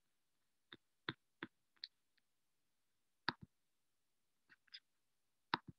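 About a dozen faint, sharp clicks at irregular intervals, a few in quick pairs, over near silence.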